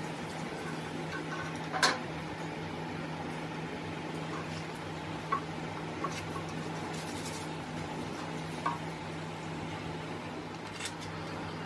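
A few light metal knocks as a ribbed cast side cover is handled and set against a bare diesel engine block, the loudest about two seconds in, over a steady low hum.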